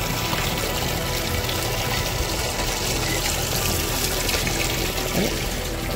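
Water running steadily, an even continuous rush.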